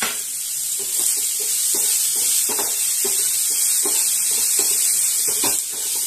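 Brinjal pieces sizzling steadily as they fry in mustard oil in a non-stick pan. A wooden spatula stirs and scrapes them in short strokes, roughly two a second.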